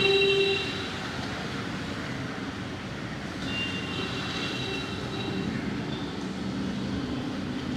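Crowded street ambience with steady traffic noise. A short, loud horn sounds right at the start, and a longer high-pitched tone comes around the middle.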